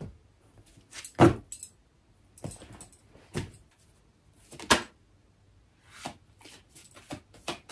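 A deck of tarot cards being shuffled by hand: a string of short papery slaps and rustles, roughly a second apart, the loudest about a second in.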